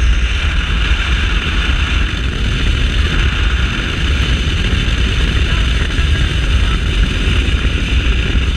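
Skeeter bass boat running at speed across open water: steady engine and water noise, with heavy wind rumble on the microphone.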